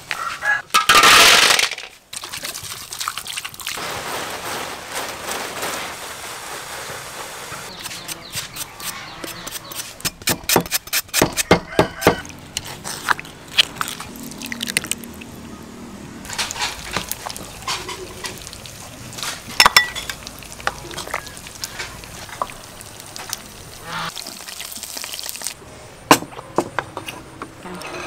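A run of food-preparation sounds: a cleaver chopping through jackfruit, and a pestle knocking and grinding in a mortar, with runs of sharp knocks in quick succession.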